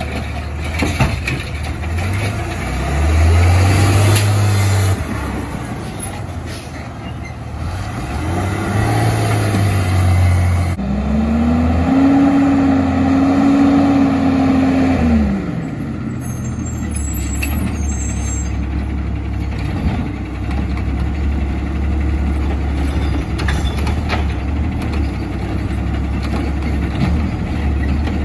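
Garbage truck's diesel engine revving up and down several times, the last rev higher and held longer, then running steadily.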